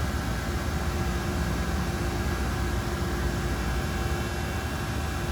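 DMG DMU-210P 5-axis portal CNC machining center running under power: a steady mechanical hum with a few steady tones over a low rumble.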